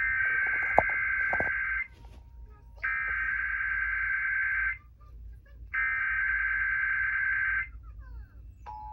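Emergency Alert System SAME header: three bursts of buzzy digital data tones, each nearly two seconds long, with about a second's pause between them. This marks the start of an alert. Just before the end, a steady alert tone begins.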